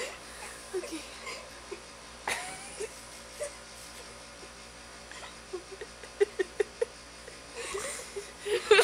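Stifled giggling in short bursts, with a quick run of about three sharp bursts a second past the middle, then louder laughter near the end.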